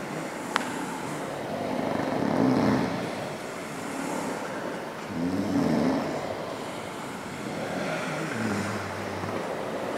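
Many men snoring at once, their snores overlapping and swelling and fading every few seconds, loudest about two and a half and five and a half seconds in. A short sharp click about half a second in.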